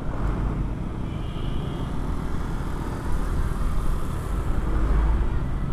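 Riding noise of a moving Honda Vario 125 FI scooter picked up by a mic inside the rider's helmet: a steady, muffled low rumble of wind and engine.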